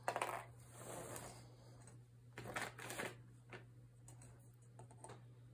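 Faint rustling and brushing of cotton potholder loops and the loom being handled by hand. There is a longer rustle at the start, another pair of rustles about two and a half seconds in, and a few light clicks.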